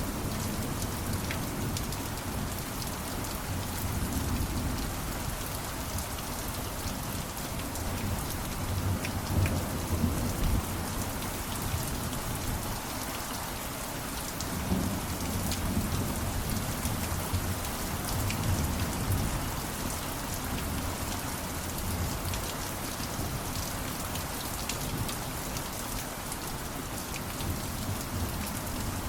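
Steady rain pattering on a surface, with fine drop ticks and low thunder rumbles that swell and fade several times.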